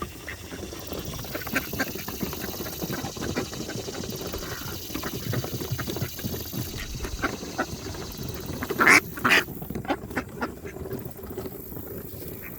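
Ducks quacking and bustling close by while being hand-fed, with a run of small clicks and calls throughout and two loud quacks about nine seconds in.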